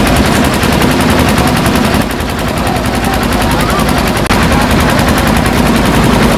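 Heavy construction machinery running loudly with a fast, even rattling clatter, briefly dropping out a little after four seconds.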